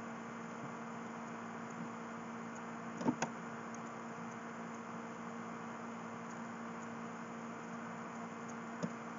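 Steady low electrical hum with background hiss, with a quick pair of faint taps about three seconds in and another near the end.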